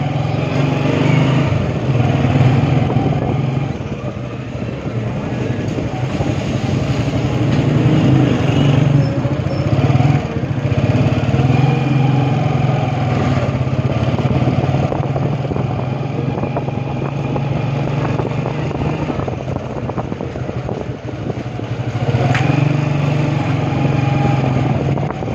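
Motorcycle engine running steadily while riding through street traffic, easing and picking up with the throttle.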